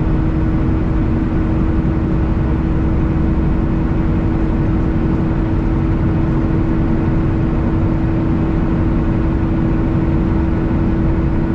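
Semi truck cruising at highway speed: steady engine drone and road noise with a constant hum, unchanging throughout.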